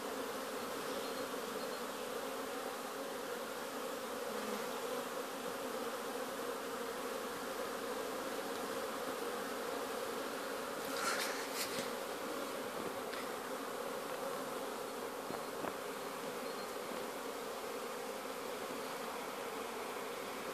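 Honey bees buzzing in a steady hum around the entrance of a wooden beehive, many bees flying in and out. A brief sharp click sounds about halfway through.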